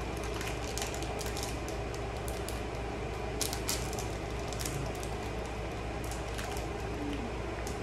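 A few light clicks and handling noises of small objects on a table, over a steady low hum.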